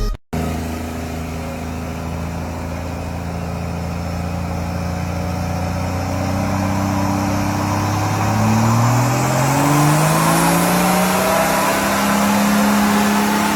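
Turbocharged car engine pulling under load, its note rising slowly and steadily for about ten seconds before levelling off near the end. The sound drops out briefly just at the start.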